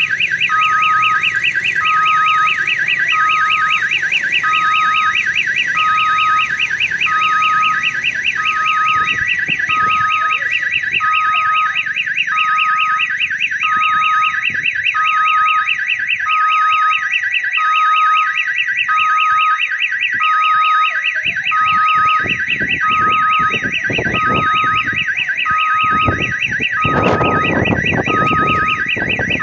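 Railway level-crossing warning siren sounding continuously: a fast warbling electronic tone over a lower beep repeating about once a second, a sound likened to a children's odong-odong ride siren. A low rumbling noise swells up near the end.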